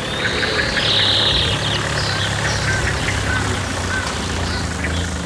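A small refrigerated delivery van drives by on a dirt track, its engine running with a steady low hum.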